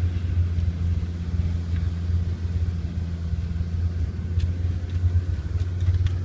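Land Rover Discovery driving through soft beach sand, heard from inside the cabin: a steady low engine and drivetrain rumble, with a couple of light clicks partway through.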